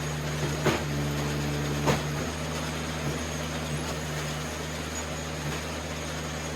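Eastonmade 37D wood splitter running steadily, with two sharp cracks about a second apart near the start as the wood gives. Between the cracks a higher steady tone joins the engine hum while the machine works under load.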